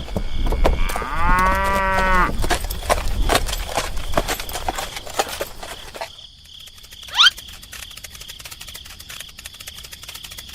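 A cow moos once, a single arched call a little over a second long. A steady high-pitched insect chirring runs underneath, with a short rising chirp about seven seconds in.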